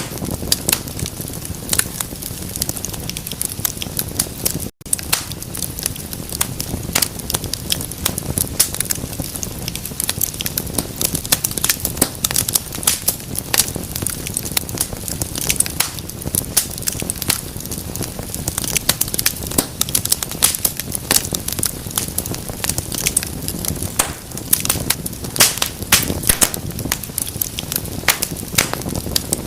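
Wood fire in a fireplace crackling, with many sharp pops and snaps over a steady low rumble of flames. The sound cuts out for an instant about five seconds in.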